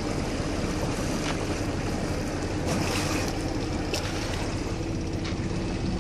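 Boat underway: water rushing along the hull and wind on the microphone, over a steady low hum.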